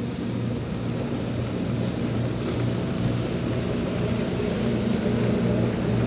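Historic He 2/2 electric rack locomotive and its coaches running past on the 800 mm rack railway: a steady low drone from motors and rack gearing, over a running noise, growing a little louder.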